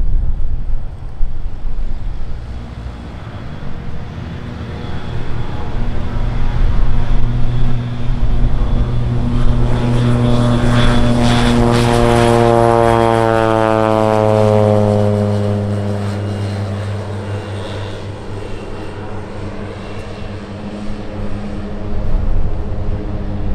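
Air Tractor crop-dusting plane's engine and propeller at takeoff power, growing louder as it rolls and lifts off past the listener, then dropping in pitch and fading as it climbs away.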